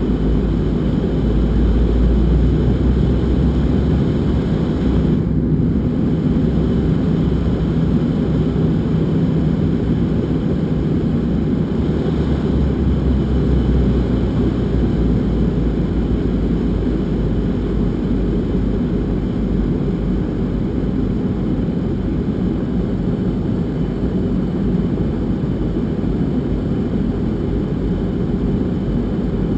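Steady deep rumble of an airliner's engines and airflow heard inside the passenger cabin, on approach.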